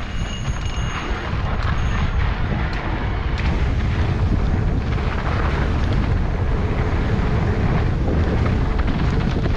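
Wind buffeting the microphone of a mountain bike descending a dirt singletrack, a steady low rumble with scattered clicks and rattles from the bike over the rough trail. A brief high thin whine sounds twice in the first two seconds.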